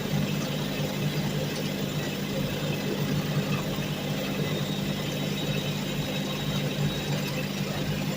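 An engine running at a steady speed, a constant hum with no revving or change.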